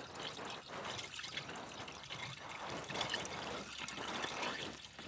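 Water pouring and trickling unevenly into a car's windscreen washer reservoir, which had run dry.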